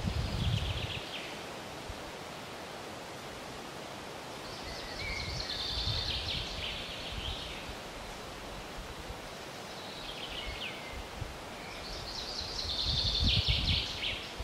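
Outdoor ambience: birds singing short high phrases four times over a steady hiss, with low rumbles of wind on the microphone.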